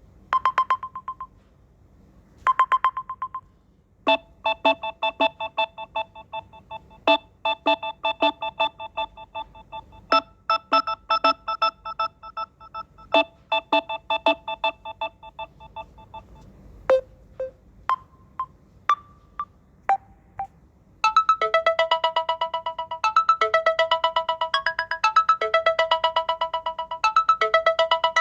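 Samsung Galaxy A13 ringtones playing one after another. A short chime repeats a few times, then comes a plucked electronic melody, then a few sparse notes, and about three-quarters of the way through a brighter, faster melody starts.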